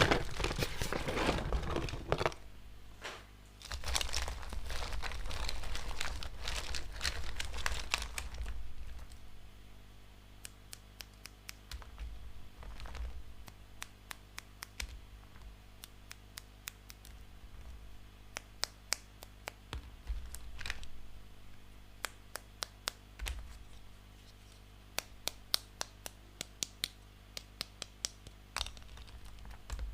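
Plastic packaging crinkling and rustling as a toy set is unwrapped, for the first eight seconds or so; after that, scattered light clicks and taps.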